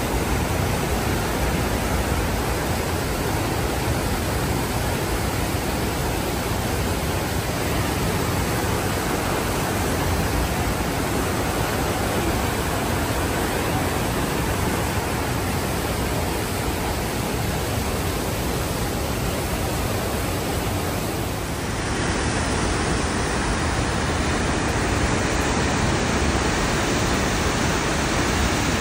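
Johnston Creek rushing over rapids: a steady, loud rush of white water. About three-quarters of the way through it cuts abruptly to a slightly brighter rush of falling water from a waterfall.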